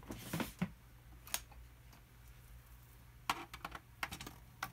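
A screwdriver taking screws out of the SkyRC MC3000 battery charger's case: a few light clicks and taps at irregular intervals, with quiet pauses between.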